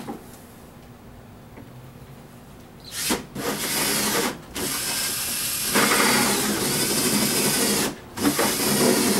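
Cordless drill boring a hole into a plastic ice chest, starting about three seconds in and running in long stretches with two brief stops.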